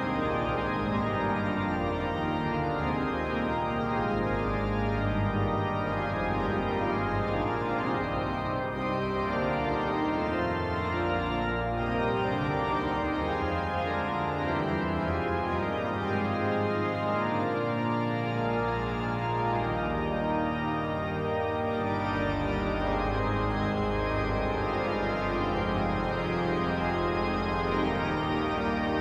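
Pipe organ playing sustained full chords that shift from one to the next, over deep bass notes, at a steady loudness.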